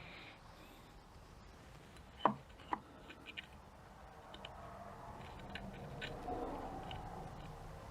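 Light metallic clicks and ticks as a drill bit is slipped into the gap of an automatic transmission's overdrive clutch pack to gauge its clearance. Two sharper clicks come a couple of seconds in, then a few faint ticks over soft handling noise.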